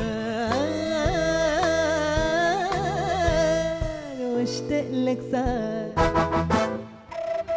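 Female singer performing an Egyptian Arabic song live with a band of keyboard, drums and percussion: she holds a long ornamented note with vibrato that falls away about four seconds in. The band carries on, with a quick run of drum hits around six seconds in, then drops briefly near the end.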